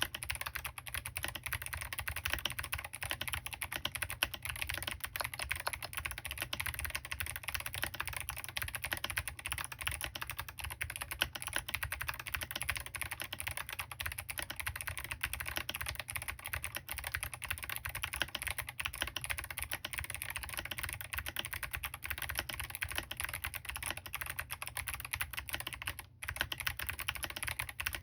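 Continuous fast typing on a Smurve80 mechanical keyboard with clicky Kailh Box Jade switches, SA-profile keycaps, an aluminium plate and no foam: a dense stream of sharp key clicks that stops briefly once near the end.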